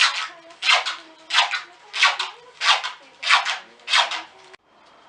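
Rhythmic scraping strokes, about three every two seconds, each a quick back-and-forth swish, stopping abruptly near the end.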